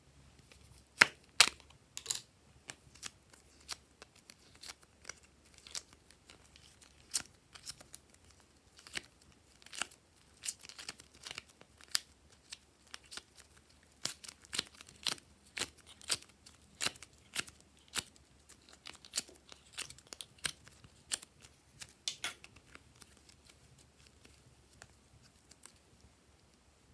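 Thin plastic pot and wrapping crackling and clicking as blue clay is pulled and peeled out of it: an irregular run of sharp crinkles that dies away a few seconds before the end.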